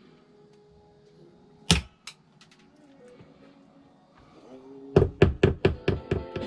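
Hammer tapping wooden bungs into the screw holes of a boat's wooden galley trim: one sharp knock about two seconds in, then a quick run of about seven taps near the end, about five a second, each a little softer than the last.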